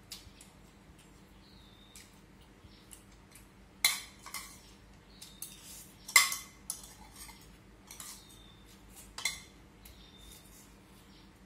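Spoon and chopsticks clinking and scraping against a bowl during eating: three sharp clinks about 4, 6 and 9 seconds in, the middle one loudest, with lighter taps between.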